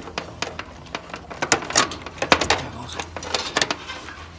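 Screwdriver working a screw loose on the defrost control board mount inside a heat pump's sheet-metal cabinet: a run of irregular metallic clicks and scrapes.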